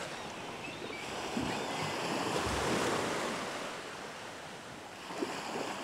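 Sea surf washing in and out, a rushing wash that swells about halfway through and then eases off.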